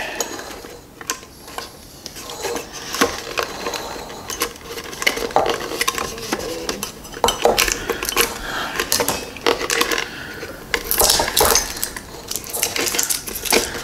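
A stiff packaging insert being pried and rattled loose inside a ceramic soup mug, with irregular knocks, clicks and scraping against the mug. The insert is held in with hot glue.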